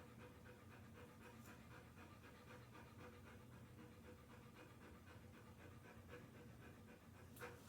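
Large dog panting faintly and steadily, with rapid, even breaths. A short sharp click sounds near the end.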